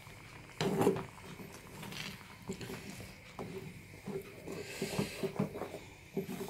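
A spatula stirring and scraping thick, wet coconut-masala gravy in a metal kadai, with irregular soft clicks and scrapes against the pan. There is a louder knock a little over half a second in.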